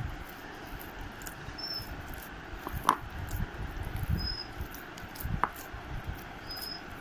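Dough being worked by hand in a bowl: soft low knocks and rubbing, with a sharp click about three seconds in and a smaller one a little later. A faint, short, high chirp repeats about every two and a half seconds.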